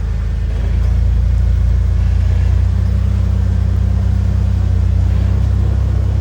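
Jeep Wrangler LJ engine running steadily at low revs as it crawls through a rocky trail section.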